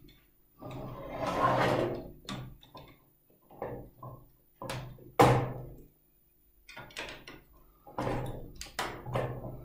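Plastic Lepin building bricks and plates being pressed and clicked into place on a model frame, with scattered clicks, knocks and the rustle of handled parts. The sharpest click comes about five seconds in.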